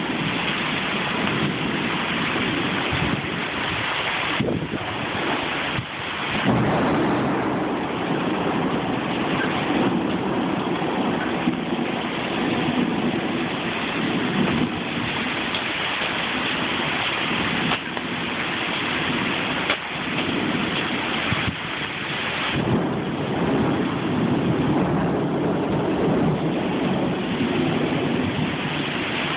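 Heavy tropical-storm rain pouring with strong gusting wind, a continuous rushing noise that swells with the gusts, notably about six seconds in and again a little past twenty seconds.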